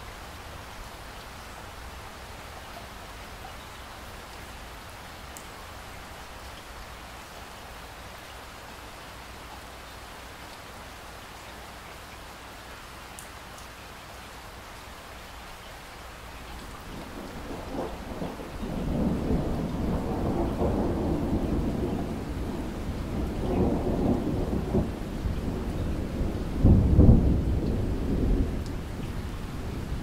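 Steady rain falling with an even hiss. A bit over halfway through, a long rolling rumble of thunder builds, swelling and easing in waves, loudest near the end before it starts to fade.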